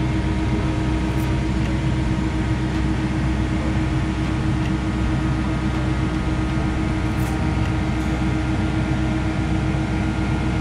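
Komatsu excavator's diesel engine running at a steady, unchanging pitch while it holds a concrete pump tank suspended on a chain.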